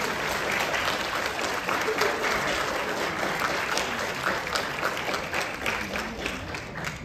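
Audience applauding, a dense steady clapping that eases slightly toward the end.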